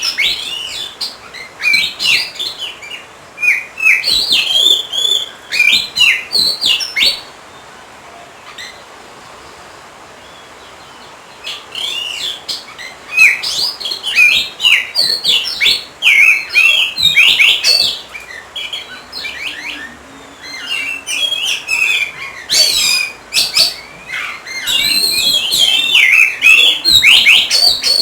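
Oriental magpie-robin (kacer) in full song: fast, varied runs of clear whistles and chirps. The song stops for about four seconds partway through, then resumes.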